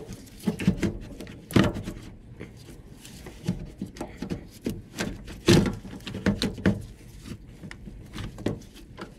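Plastic intake manifold being handled and worked out of a Honda CR-V engine bay by hand: irregular plastic knocks, clunks and rubbing, the loudest knocks about one and a half and five and a half seconds in.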